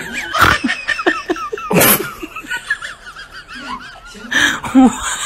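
People laughing: wavering, giggly laughter broken by a few loud, breathy bursts, about half a second in, near two seconds and again around four and a half seconds.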